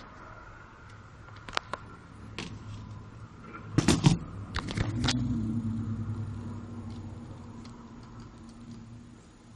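Plastic Lego Technic parts clicking and rattling, with scattered single clicks and a cluster of loud clicks about four seconds in, followed by a low hum that fades away.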